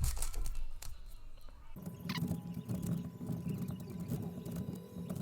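Plastic 6x6 speedcube being turned quickly, a fast run of light clicks and clacks of its layers turning. From about two seconds in, a low steady background sound runs underneath.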